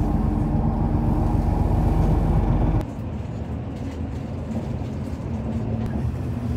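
Intercity coach bus heard from inside the cabin while driving: a steady low engine drone and road rumble. About three seconds in the level drops suddenly and the rumble goes on more softly.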